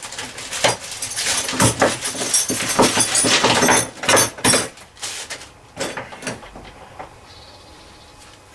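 Handling clatter as the lathe's plastic tool tray and its small fixings are picked up and moved about: a quick string of knocks, clicks and rustles that thins out after about five seconds, leaving a few soft knocks over a quiet hiss.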